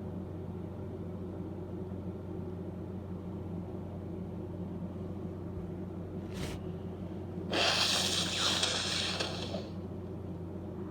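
A woman with a cold sniffs once quickly. About a second later she lets out one loud, breathy burst through her nose and mouth that fades over about two seconds, part of a sneezing and coughing fit. A steady low hum sits underneath.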